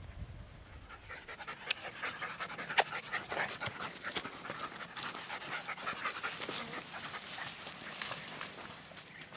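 Podenco andaluz hunting dog panting hard while pushing through dry scrub, with a dense rustle of brush and a few sharp snaps, the loudest sounds, scattered through.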